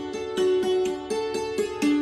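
Background music: a plucked string instrument playing a quick repeating melody, several notes a second.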